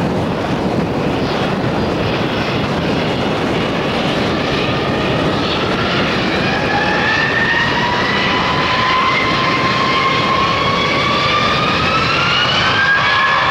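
Airbus A320's IAE V2500-A1 turbofans spooling up to takeoff thrust: a steady jet rumble with a whine that appears about five seconds in and climbs steadily in pitch, the engines winding up at the start of the takeoff roll.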